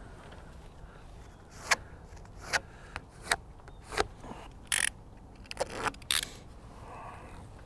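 SIGA Wigluv adhesive tape being handled, peeled off its backing and pressed down: a string of sharp snaps and crackles, the first the loudest.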